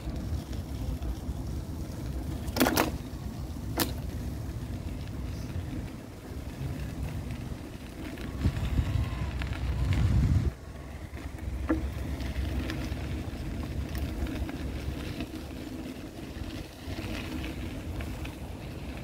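Outdoor city street ambience: a steady low rumble with two sharp clicks about three and four seconds in. The rumble swells louder in the middle and then drops off suddenly.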